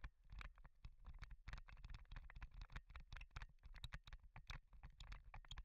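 Faint, muffled rattling and irregular knocking of a mountain bike jolting over a rough, stony dirt track, over a low rumble.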